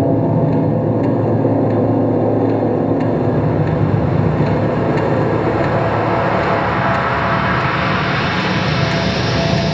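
A dense rumbling drone with steady low hums, and a rushing hiss that swells in from about halfway through.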